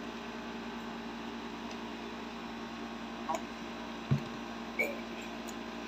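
A steady low electrical hum, with a soft knock about four seconds in as a plastic sippy cup is handled. Two brief faint squeaks come just before and after the knock.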